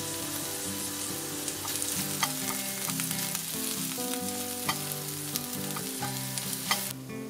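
Chopped asparagus sizzling in hot coconut oil in a nonstick frying pan as it is stir-fried, with a spatula clicking against the pan now and then. The sizzle stops suddenly near the end.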